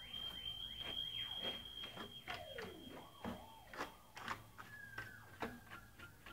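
Electronic dub siren effects: a held high tone for about four seconds, overlaid with swooping falling and rising pitch glides and sharp clicks, then a lower tone that slowly sinks in pitch near the end.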